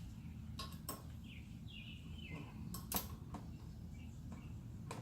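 Metal hand tools clinking and knocking, several separate sharp clanks with the loudest about three seconds in, as tools are picked up and fitted during rear brake rotor removal.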